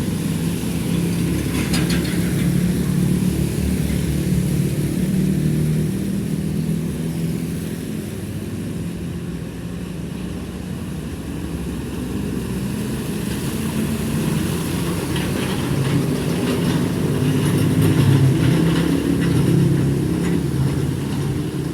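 Heavy diesel trucks and buses passing in traffic, engines running with a steady low drone. The traffic eases off about halfway through, then swells again and is loudest a few seconds before the end.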